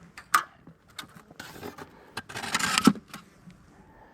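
Insulation boards and frames being handled in a plastic beehive: a few sharp knocks and clicks, and two scraping rubs, the first about a second and a half in and the second, louder, near three seconds.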